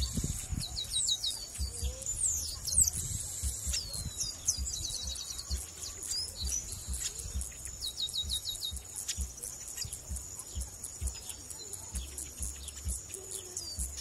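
Chestnut-capped blackbird (Chrysomus ruficapillus) singing: quick runs of five or six short, clipped high notes, repeated every few seconds, with a few sweeping whistled glides between them.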